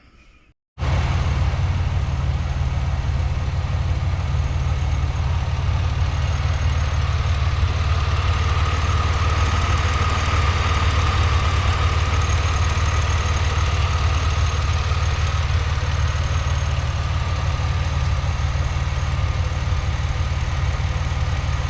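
GM 3800 V6 engine idling steadily, fitted with a new serpentine belt and tensioner pulley. The sound cuts in abruptly about a second in.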